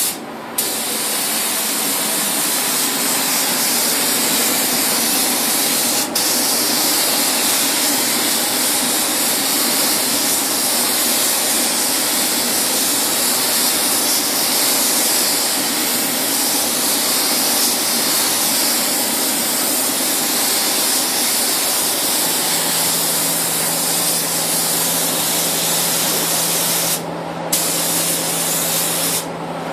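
Air-fed automotive paint spray gun spraying the gray base colour: a steady, loud hiss that stops for a moment about six seconds in and twice more near the end as the trigger is let go.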